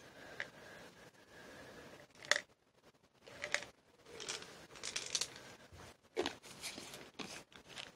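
A string of short, crisp crackling and scraping sounds close to the microphone, about eight of them with quiet gaps between: ASMR handling sounds.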